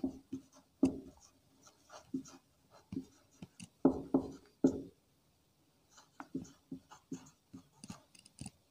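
Marker pen writing by hand: a string of short strokes of the tip rubbing across the surface, loudest about four to five seconds in.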